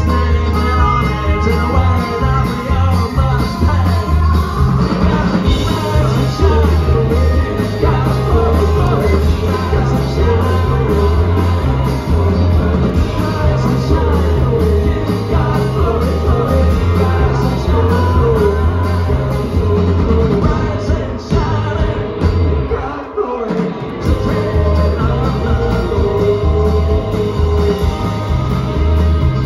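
Live band playing loud, driving music with a steady beat on drum kit, banjo and steel guitar; the bass and drums briefly drop out about twenty-three seconds in.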